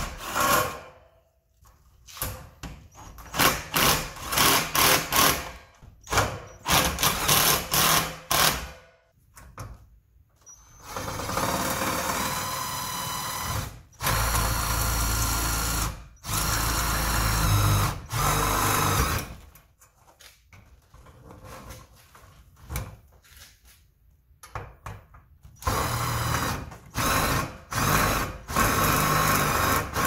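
Cordless drill boring into a galvanized steel garage-door reinforcement strut, run in many short trigger bursts, then in longer steady runs of a few seconds each, with a quiet pause before more short bursts near the end.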